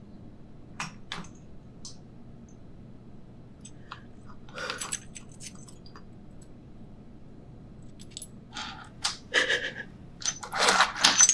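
A woman crying in short sobs, then near the end a ceramic plate breaking on the floor with a loud crash and clatter of pieces.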